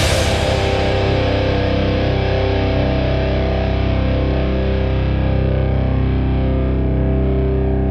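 Distorted electric guitar through Mesa and Orange Dark Terror amplifiers, one chord struck hard and left to ring out and sustain, its bright top slowly dying away.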